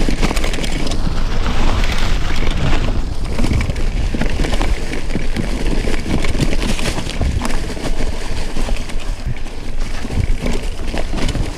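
Loud wind buffeting on the microphone mixed with constant knocks and rattles, as a mountain bike is ridden over a rough trail.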